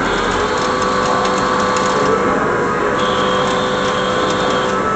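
CNC lathe running with coolant spraying onto the work: a steady machine hum with several held tones over a splashing hiss, and a high whine for a second or two past the middle.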